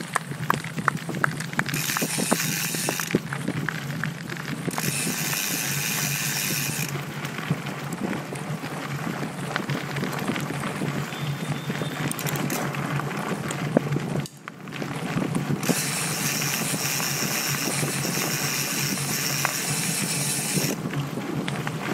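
Mountain bike ridden over a dirt and gravel trail, heard from a handlebar-mounted camera: tyres crunching and the bike rattling over bumps, with wind on the microphone. Several stretches of a high buzz come and go.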